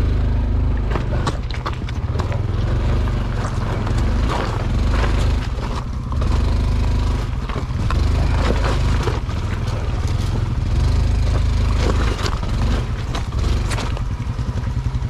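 Small trail motorcycle engine running, with frequent knocks and clatter.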